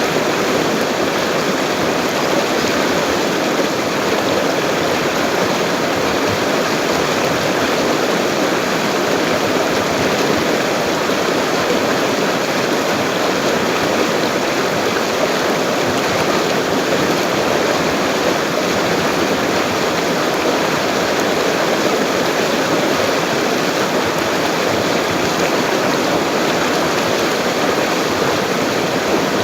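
Full-flowing river: a steady, unbroken rush of water.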